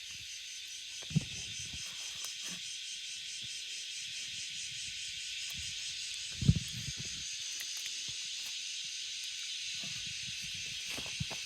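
A steady high-pitched hiss of an insect chorus, with a couple of dull low thumps; the loudest thump comes about six and a half seconds in.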